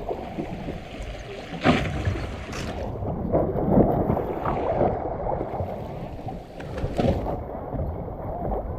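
Muffled sea water and wind noise on the microphone, a dense low rushing, with a few sharp knocks about two seconds in and again near seven seconds.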